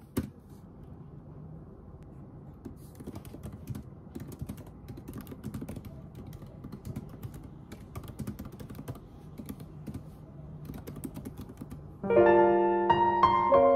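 Typing on a laptop keyboard: a steady run of quick, light key clicks. About twelve seconds in, soft piano music comes in and becomes the loudest sound.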